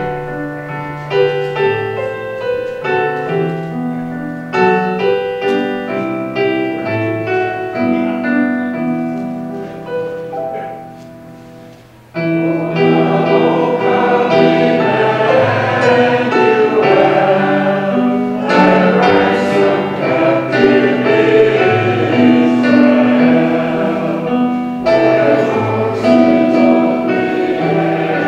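Piano playing a slow introduction of separate, fading notes. About twelve seconds in, the sound swells as a choir comes in singing with the piano.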